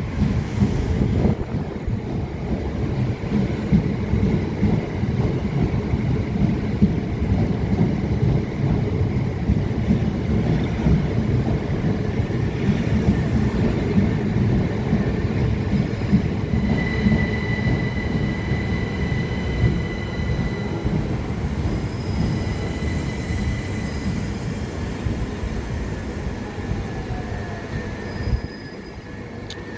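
A train running on the rails with a continuous low rumble. Thin wheel squeal comes in about halfway through and lasts several seconds. The rumble drops away shortly before the end.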